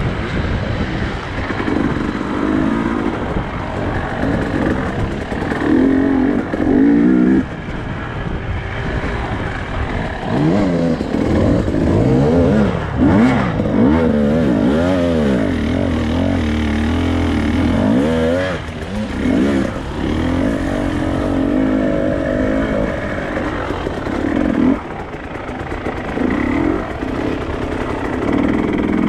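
Off-road motorcycle engines revving hard, the pitch rising and falling over and over as the throttle is worked. Through the middle stretch more than one engine note seems to overlap, and the note drops sharply twice, about seven and about twenty-five seconds in.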